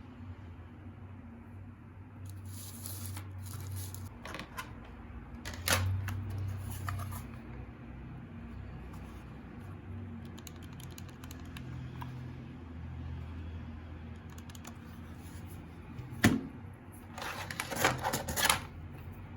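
Keys of a mechanical keyboard with Gateron Yellow Pro switches clicking now and then, with a louder knock about three-quarters of the way in and a quick run of typing near the end, over a low steady hum.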